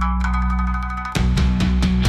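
Music: a fast run of plucked shamisen-style notes over a sustained bass, changing about a second in to a quick flurry of plucked strikes with drum hits.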